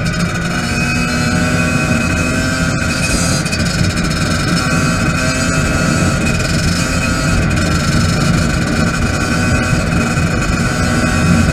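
Two-stroke engine of a Yamaha YZ 85 dirt bike, heard from on the bike, running at steady high revs while cruising on asphalt, with heavy wind rush on the microphone.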